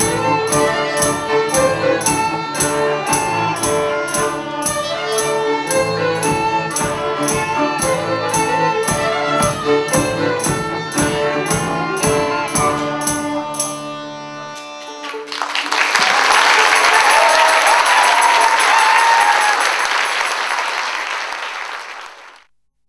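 Folk band of violin, flute and guitar playing a tune over a steady, fast percussion beat, ending about fourteen seconds in on a held final note. An audience then applauds, and the applause fades out near the end.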